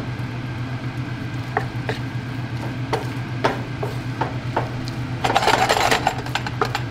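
Wooden spoon stirring and tossing linguine through a creamy egg sauce in a nonstick frying pan. Scattered taps of the spoon against the pan, with a denser spell of wet stirring about five seconds in.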